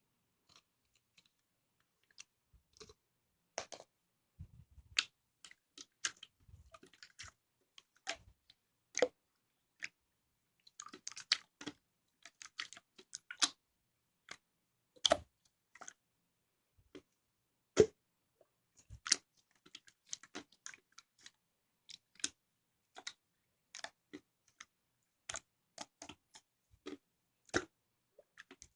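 Clear slime being squeezed, poked and stretched by hand, giving irregular sticky clicks and small pops, a few to several a second.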